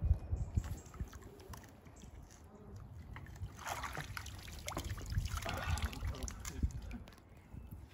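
Water sloshing and splashing over a low rumble, in a run of bursts through the middle few seconds, as a shopping trolley is dragged out of the water.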